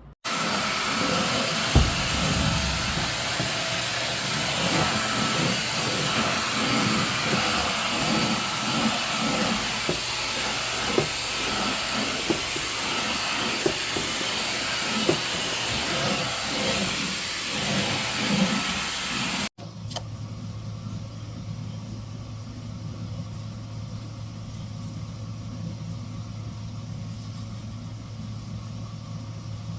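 Vacuum cleaner running with a steady motor whine and rushing air, with low bumps as it is pushed back and forth. About two-thirds through the sound cuts to a quieter steady low hum.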